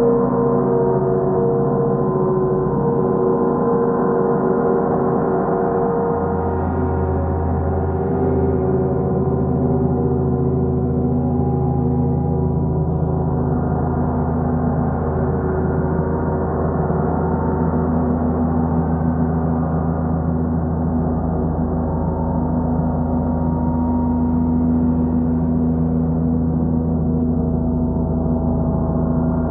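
Large gongs played continuously with soft mallets: a dense, steady wash of overlapping ringing tones that slowly shift and swell, with no sharp strikes.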